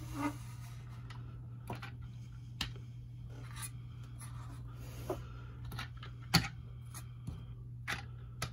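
Hard plastic G.I. Joe toy vehicle parts clicking and knocking as they are handled, single clicks every second or so, the sharpest about six seconds in, over a steady low hum.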